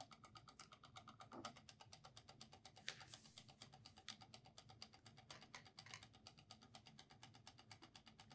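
Near silence: faint room tone with a fast, even, faint ticking and a few soft brief noises.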